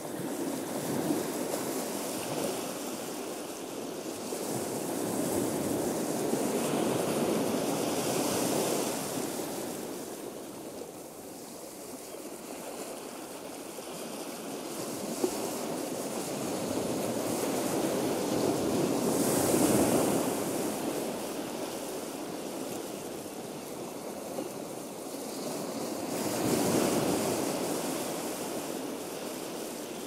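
Ocean surf: a rushing wash of water that swells and falls back several times as the waves come in.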